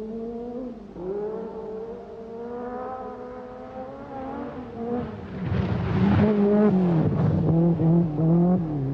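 Peugeot 205 Turbo 16 Group B rally car's turbocharged four-cylinder engine at full effort, its pitch climbing and dropping with each gear change. Around five to seven seconds in it gets louder, with a noisy rush, as the car comes close.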